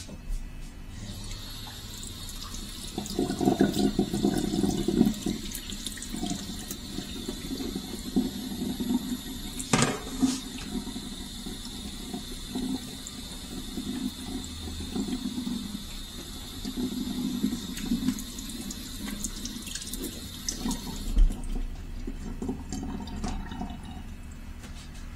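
Kitchen tap running into the sink while tomatoes and cucumbers are rinsed under it, with the clatter of handling. The water comes on about a second in and is shut off a few seconds before the end, with one sharp knock midway.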